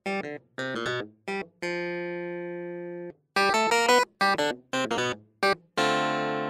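Background music: quick runs of short pitched notes, broken by two long held chords.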